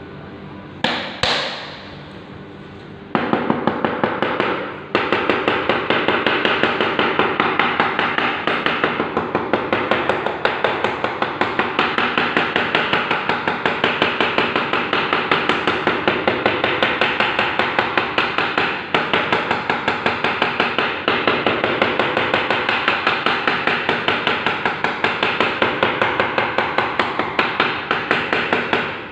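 Hand hammering in a fast, steady rhythm of about four blows a second, the kind of work done to repair lifted, bulging ceramic tiles. Two sharp knocks come first, then the run of blows starts about three seconds in, with a short break soon after.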